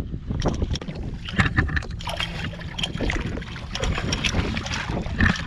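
Wind buffeting the microphone over water splashing and scattered knocks as a hooked speckled trout thrashes at the surface and a landing net is dipped into the water.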